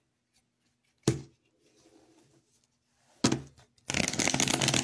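Two sharp knocks about two seconds apart, then a deck of tarot cards being shuffled from about four seconds in, a dense rapid crackle.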